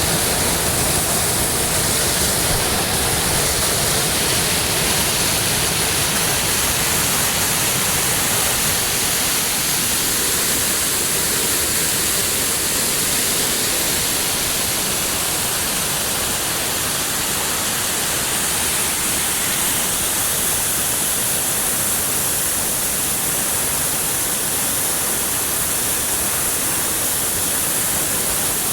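Water pouring over a dam, overflowing after heavy rain: a steady, unbroken rush of falling water.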